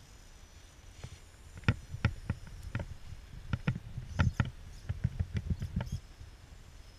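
Irregular knocks and clicks of an Axial AX10 RC rock crawler's tyres and chassis striking rock as it climbs, coming thick from about a second and a half in and thinning out near the end.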